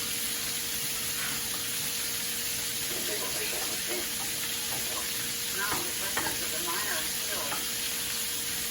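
Butter and honey sizzling steadily in a pan on the stove as they melt down, a constant frying hiss, with faint voices in the background.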